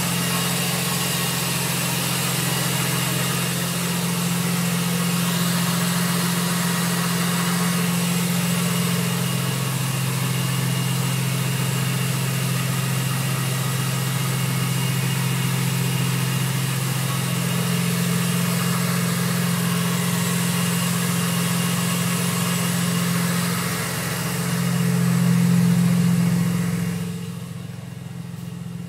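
BMW Z4 M's VT2-500 supercharged straight-six idling steadily after a cold start. Near the end the engine sound swells briefly, then turns quieter and duller for the last couple of seconds.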